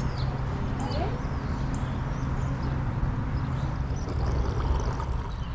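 Steady outdoor background with a constant low hum, and scattered short high bird chirps over it.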